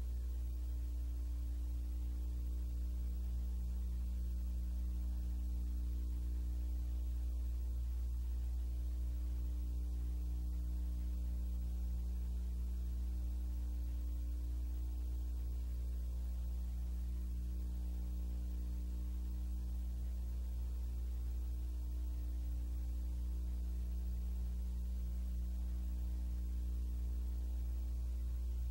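Steady electrical mains hum with a stack of overtones and a light, even pulsing in the low buzz, with no other sound.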